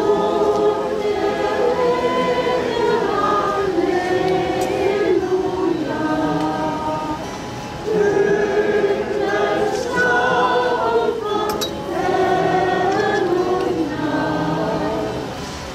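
Chorale group singing together in long held notes, in phrases of a few seconds, with a brief pause for breath about eight seconds in.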